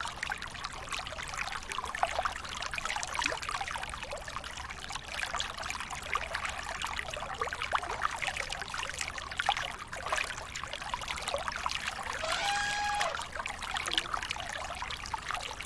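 River water splashing and trickling as a baby elephant plays in it, with many small splashes throughout. A short pitched call sounds about three-quarters of the way through.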